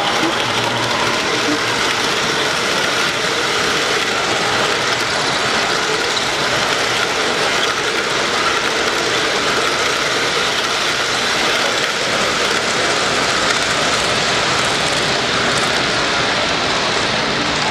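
A model train, a diesel locomotive pulling passenger cars, rolling past close by on the layout track, its motor, gears and wheels running over a steady background noise.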